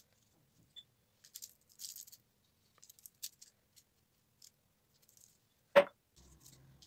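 Faint, scattered rustling and light ticks as desiccated coconut is sprinkled by hand onto a pudding on parchment paper and patted down. One sharp knock near the end stands out as the loudest sound.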